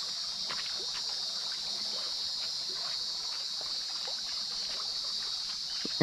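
Steady high-pitched outdoor hiss of the forest hillside, with a few faint scuffs and ticks of footsteps on the ledge.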